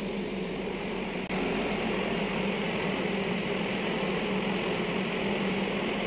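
Steady shipboard machinery hum: a constant low drone with an even hiss over it, getting slightly louder about a second in.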